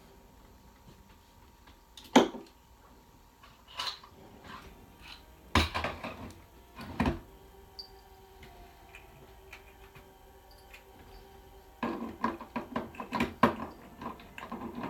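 Small household objects being picked up, moved and set down on a wooden desk: scattered knocks and clatters, the loudest about two seconds in, and a quick run of rattling and tapping near the end.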